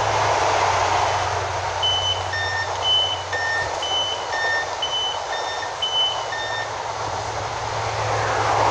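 Door warning beeper on an LNER InterCity 225 train's Mark 4 coaches: a string of short electronic beeps alternating between two pitches, a couple a second, through the middle few seconds, over the steady hum of the standing electric train.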